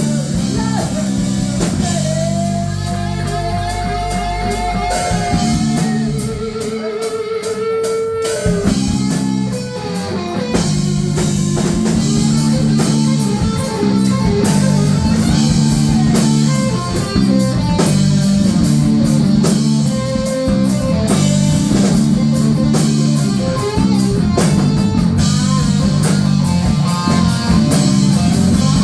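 Rock music with electric guitar, bass and a drum kit keeping a steady beat; a guitar holds long sustained notes a few seconds in, and the beat grows fuller from about ten seconds in.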